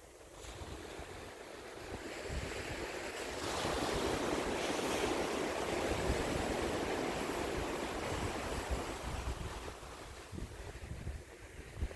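Sea waves breaking and washing up on the shore: one wave swells in a few seconds in, peaks, then slowly draws back and fades. Wind buffets the microphone with low rumbles.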